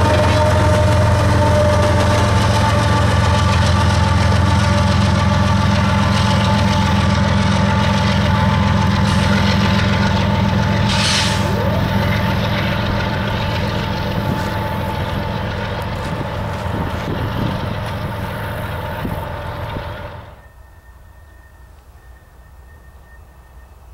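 BNSF GE ES44AC diesel locomotive passing close by with a coal train: a steady engine drone with whining tones over wheel noise, and a brief high-pitched hiss about eleven seconds in. About twenty seconds in it cuts off abruptly to quiet outdoor background with a faint steady high tone.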